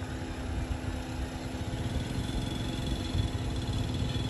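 Willys Jeep engine idling with a steady low hum.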